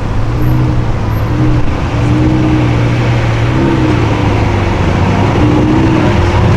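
A car engine running loud, its pitch rising and falling several times over a steady low drone, as with repeated revving.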